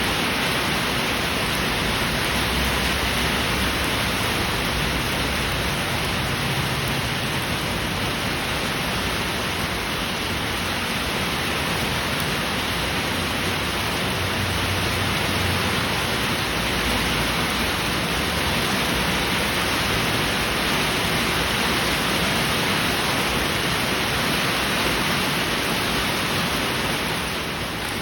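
Heavy rain falling steadily as a dense, even hiss, easing slightly for a moment near the end.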